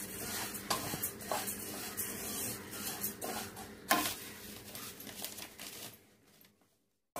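A wooden spatula stirs and scrapes fennel seeds being dry-roasted in a wok: the seeds rustle and hiss, with repeated scraping strokes and taps against the pan. The sound fades away about six seconds in.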